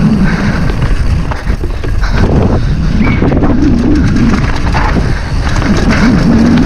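Downhill mountain bike riding fast over a rough trail: steady rumble of the tyres with frequent knocks and rattles from the bike, and wind buffeting the microphone.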